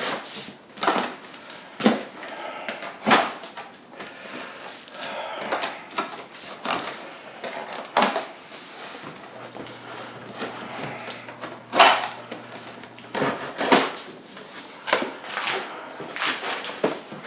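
Cardboard shipping boxes being handled and opened: scattered knocks and thumps of box against box and table, with scraping and rustling of flaps and sliding cardboard between them.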